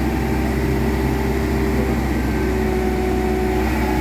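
Hitachi Zaxis 110 excavator's diesel engine running steadily, heard up close, with an even low hum.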